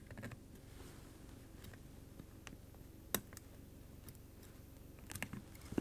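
Faint, scattered clicks of small plastic and metal parts being handled as an HTI HT-A1 thermal camera is taken apart by hand, its circuit-board assembly eased out of the plastic housing. One sharper click comes about three seconds in, and a short run of clicks near the end.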